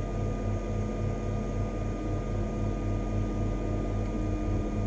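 Flashforge Dreamer NX 3D printer running while its extruder loads filament through the hot nozzle: a steady whir of fans with a low throbbing pulse about five times a second.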